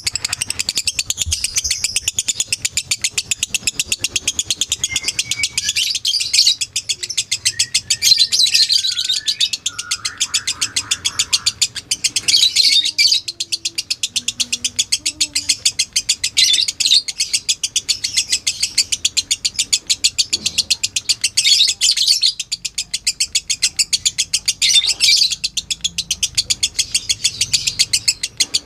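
Lovebird singing a long, unbroken 'ngekek' chatter: a rapid, high-pitched string of chirps with no pauses, swelling in loudness every few seconds.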